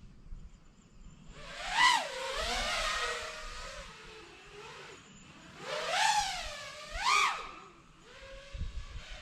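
Nazgul E F6D FPV quadcopter's motors and propellers whining, the pitch rising and falling sharply with throttle changes, loudest about two seconds in and again around six to seven seconds in.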